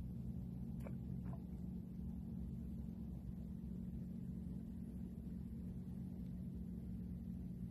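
A steady low hum throughout, with two faint ticks about a second in.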